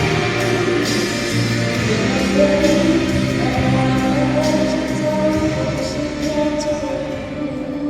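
Female vocalist singing a song over instrumental accompaniment.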